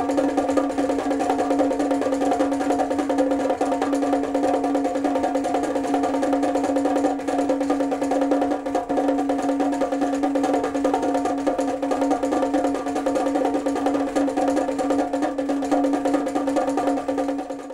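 Roullet-Decamps clockwork drummer automaton beating its small drum in a fast, even, continuous roll, with the drum's ringing tone held steady throughout.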